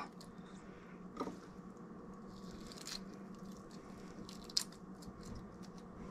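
Raw soft-shell crab torn apart by hand: faint wet crackling and squishing, with three small sharp snaps of shell, against a low steady hum.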